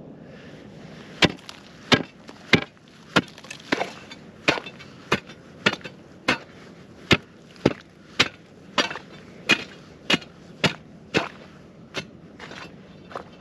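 Repeated chopping strikes on ice, about twenty blows at a steady pace of roughly one every half second to second. They are breaking up the frozen pile of snow and ice that has sealed over an ice-fishing hole.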